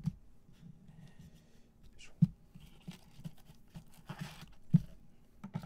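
Gloved hands handling a trading-card box, its foam insert and a hard plastic card holder: soft rustling and small clicks, with two sharp taps of the hard case about two seconds and close to five seconds in.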